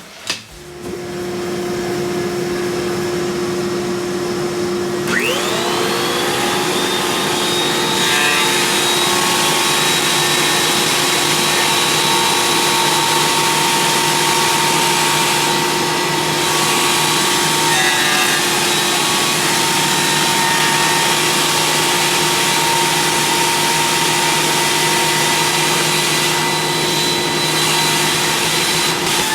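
Thickness planer running while planing a wood blank. It winds up to speed with a rising whine about five seconds in, over a machine that starts about half a second in, then runs steadily, with brief changes in tone a few times.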